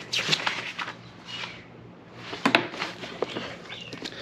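Handling noises of parts and tools on a workbench: a few rustles, then a cluster of sharp clicks and light knocks about two and a half seconds in.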